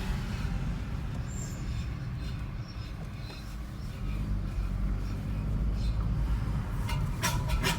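Steady low running rumble of a 30-series Toyota Prius with a few faint ticks, then near the end a short burst of metallic rattling. This is the abnormal metal noise that the owner takes for a part that has come loose.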